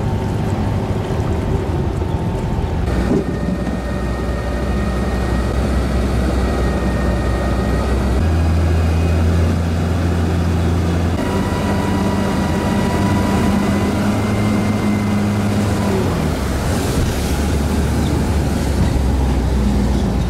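Amphicar's rear-mounted Triumph Herald four-cylinder engine running steadily as the car motors through the water and up the landing ramp, its note stepping up and down several times. Wind buffets the microphone.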